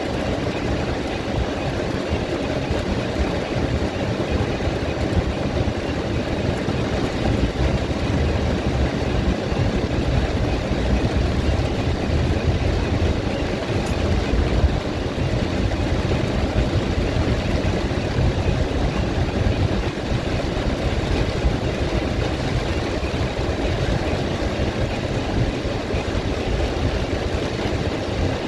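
Steady noise heard inside a car driving in heavy rain: a low rumble of the car and surrounding traffic, with the hiss of rain and wet road.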